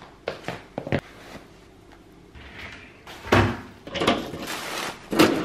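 About four light footsteps on a wooden floor, then keys rattling and turning in a front-door lock and the metal lever handle and latch clicking as the door is unlocked and opened, the sharpest click near the end.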